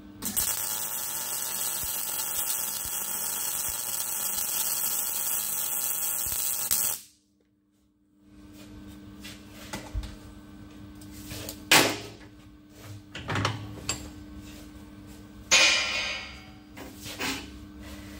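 MIG welding arc crackling steadily for about seven seconds, laying a short weld run onto a rusted steel roller, then cutting off suddenly. After that comes a steady low hum with a few sharp metallic clanks as the part is handled in a vise.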